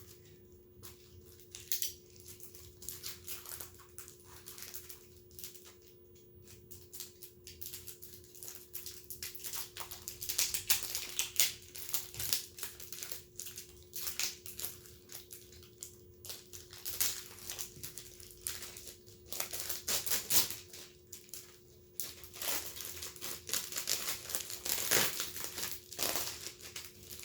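Packaging being opened by hand, crinkling and rustling in irregular bursts that grow louder about ten seconds in, over a faint steady hum.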